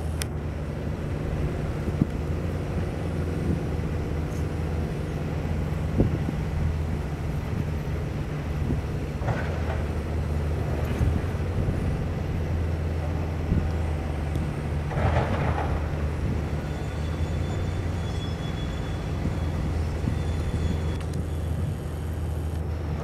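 A steady low engine hum that does not change. A few short knocks and two brief rushing sounds, about nine and fifteen seconds in, sit over it.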